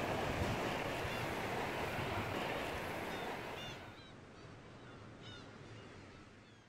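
Seaside ambience: a steady rushing noise of wind and surf that drops away after about three and a half seconds, with two brief clusters of short chirping bird calls, about halfway and near the end.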